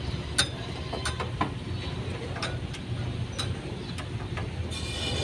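About six sharp, irregularly spaced clicks and taps over a steady low hum. Background music comes in near the end.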